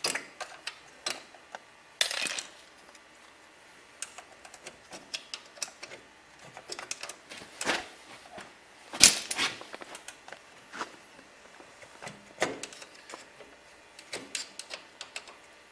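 Metal transmission parts clinking and scraping as the one-way clutch is worked out of a G4 automatic transmission. Irregular clicks and knocks throughout, the sharpest about 2 seconds in and the loudest about 9 seconds in.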